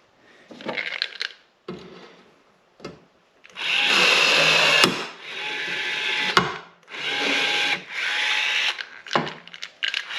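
Power drill running in a series of short bursts, stopping and starting, with a steady motor whine during each run. Two sharp snaps come about five and six and a half seconds in.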